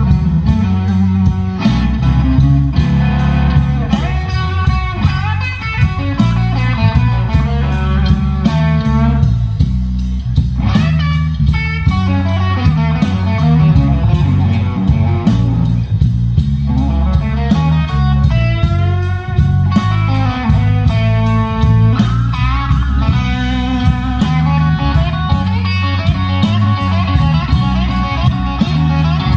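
Live blues band playing a slow blues: electric lead guitar bending and sliding notes over bass guitar and steady drums, amplified through the stage speakers.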